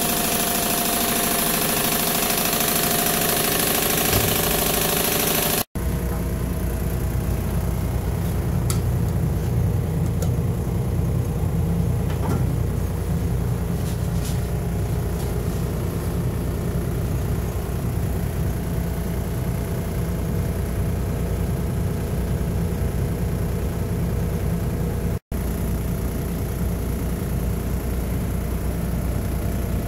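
Air-powered paint can shaker agitating a clamped gallon can of paint: a loud steady hiss of compressed air with a running mechanical hum, cut off about six seconds in. After that, a steady low machine rumble.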